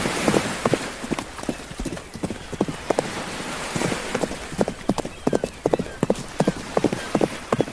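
Horse hooves clip-clopping in a quick, even rhythm of about three to four hoofbeats a second.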